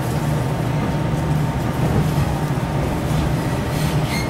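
Inside a Sanyo Electric Railway train car under way: a steady rumble of the train running on the rails, with a thin steady whine above it and a short click near the end.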